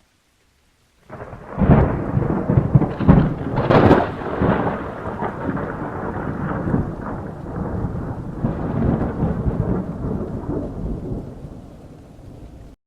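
Thunder: a sudden loud crack about a second in, rumbling on and slowly fading, then cut off abruptly near the end.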